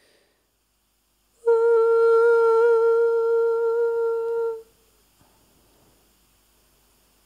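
A person humming one steady, fairly high note for about three seconds, with a slight waver in pitch midway, before it stops abruptly.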